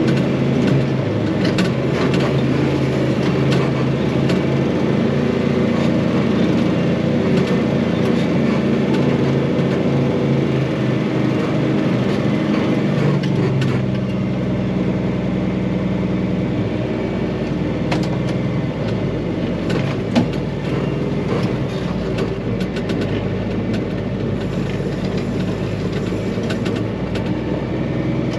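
Farm tractor engine running steadily, with scattered clanks and rattles; its note shifts about halfway through.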